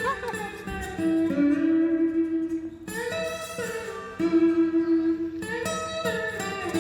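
Guitar music: held plucked-string notes that change every second or so.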